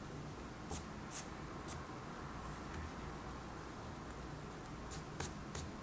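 An eraser rubbing over a calligraphy card to remove pencil guidelines, in short, quick strokes. Two groups of three sharper strokes come about a second in and near the end, with fainter rubbing between them.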